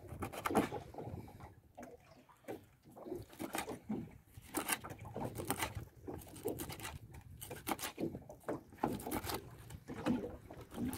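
Knives chopping fish into bait pieces on wooden cutting boards: a run of irregular knocks and taps.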